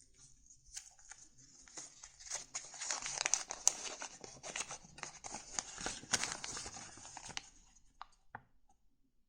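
Paper being handled, crinkling and rustling. Dense crisp crackles start about two seconds in, last about five seconds, and end with a couple of single clicks.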